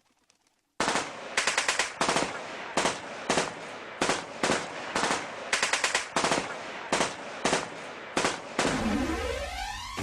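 Machine-gun fire sound effect in a dance soundtrack: after a brief silence, rapid bursts of shots rattle on, and near the end a swooping whistle dips and rises over a low rumble.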